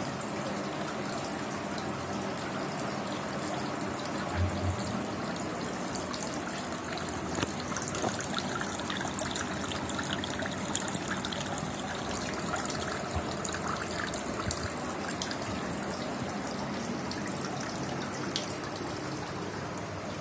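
Small decorative tabletop fountain: water trickling and splashing steadily, with small drips.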